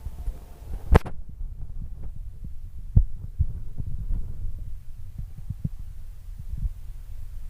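Fireworks going off: one sharp bang about a second in, then irregular low, muffled thumps over a steady low rumble.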